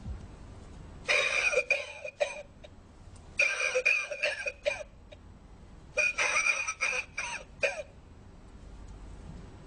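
Lung-shaped novelty ashtray's built-in speaker playing recorded coughing, in three bouts of several coughs each. The sound is thin, with no low end.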